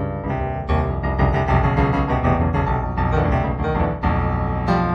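Background piano music, a steady flow of notes.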